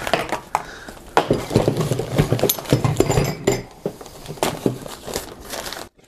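Unboxing handling noise: a run of light clinks and clatter mixed with rustling packaging, stopping abruptly near the end.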